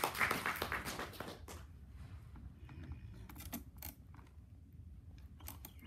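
A room of people clapping their hands in a short, ragged burst that dies away after about a second and a half, leaving a few stray claps.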